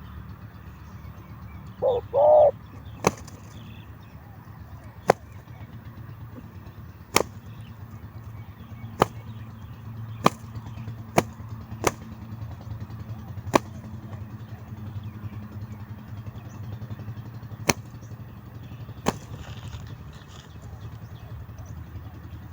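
A spotted dove gives a short, two-part coo about two seconds in. Sharp single clicks follow at irregular intervals, about ten of them, over a low steady hum.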